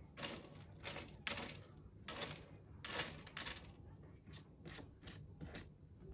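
Cat raking loose litter in a litter box with her front paws: about fifteen short, scratchy strokes of litter granules, irregular and coming faster in the second half.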